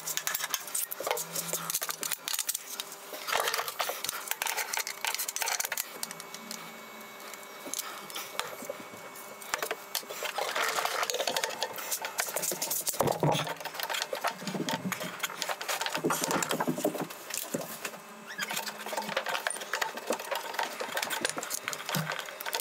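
Workshop handling sounds: a steel ball-bearing drawer slide clicking and rattling as it is handled and fitted into a plywood cabinet, a bar clamp being set against the drawer box, and short runs of a cordless drill/driver. The activity comes in bursts, with a quieter stretch partway through.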